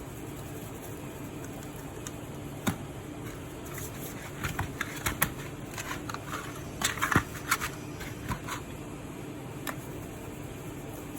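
Light clicks and clatter from kitchen things being handled, bunched about four to eight seconds in, over a steady low hum.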